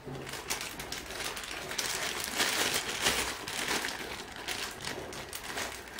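Thin clear plastic bag crinkling and rustling in the hands while a small remote control is packed into it, a dense run of fine, irregular crackles.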